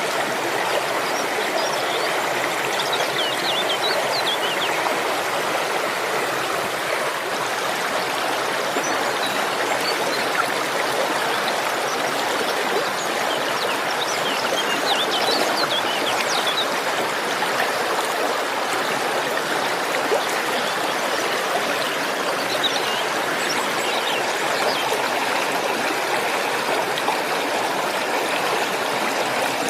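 Steady rush of falling water from a waterfall and its stream, with a few faint high bird chirps now and then.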